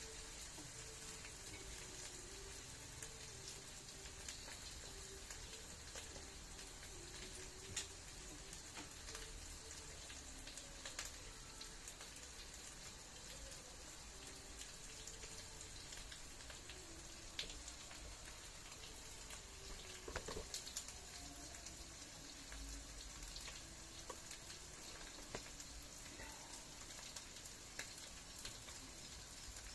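Food frying in a pan: a faint, steady sizzle with scattered pops and crackles.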